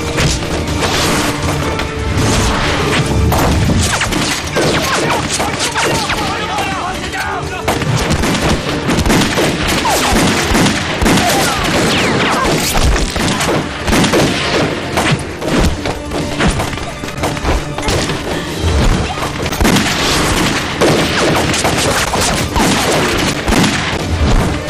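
Action-scene soundtrack: background music under the thuds and blows of a hand-to-hand fight, rifle shots, and shouting voices.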